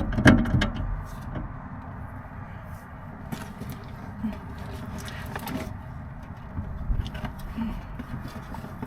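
Wind buffeting the microphone as a steady low rumble, with a clatter of a ratchet and extension on a seized brake caliper bolt near the start and a few shorter metal clicks and knocks later.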